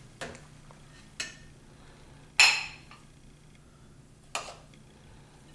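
Metal utensil clinking against a stainless steel pot while mashed potatoes are scooped out: four separate clinks, the third the loudest and ringing briefly.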